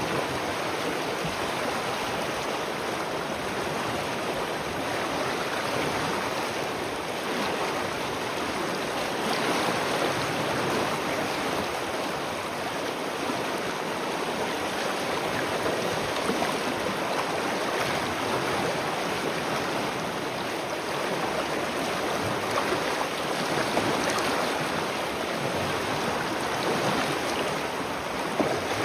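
Spring water flowing and splashing in a steady rush.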